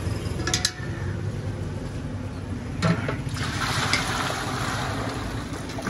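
Red, oily gravy gushing and splashing as it is poured from a steel milk can into a large pot of broth, starting about three seconds in, after a knock. A low steady rumble runs underneath.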